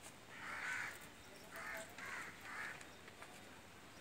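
Four harsh animal calls: a longer one about half a second in, then three short ones in quick succession.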